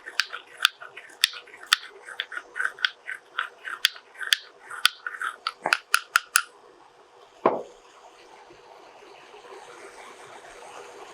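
Dry spices being pounded with a pestle in a mortar: sharp, quick strikes about two a second, stopping about six seconds in, then one heavier thump. A faint steady hiss follows.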